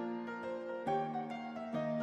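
Background music: chords struck about once a second, each fading away before the next.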